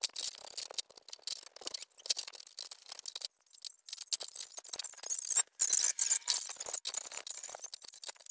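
Aerosol cleaner sprayed in short hissing bursts onto a scooter's throttle body, the loudest stretch a little past halfway, among scraping and clinking of the metal part against a steel tray.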